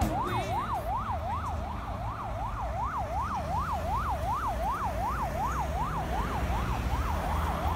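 Emergency vehicle siren in a fast yelp, the pitch sweeping up and down about three times a second, over a low rumble of traffic.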